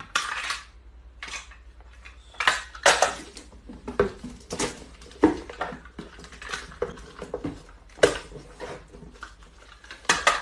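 Irregular knocks, clatters and short rasps as small cardboard boxes and a plastic tape dispenser are handled on a tiled floor.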